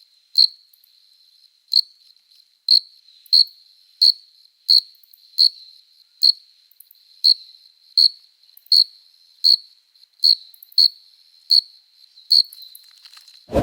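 A cricket chirping: short, clear high-pitched chirps repeating about once every 0.7 seconds, with a faint steady trill at the same pitch between them. A brief low thump comes right at the end.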